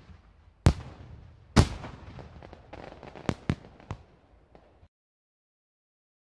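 Fireworks: two loud bangs about a second apart, followed by a few lighter pops and crackling that die away.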